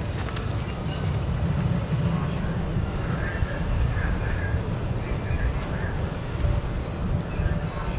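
Low steady rumble of city and rail traffic, with faint high-pitched squeals from rail wheels coming and going.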